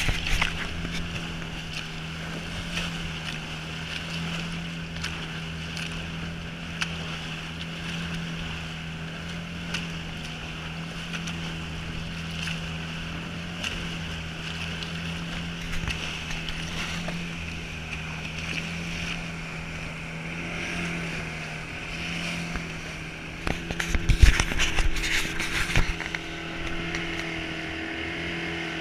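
Motorboat engine running steadily at speed, with water rushing and splashing along the hull as the open boat crosses choppy water. About 24 seconds in there are a couple of seconds of louder knocks and splashing.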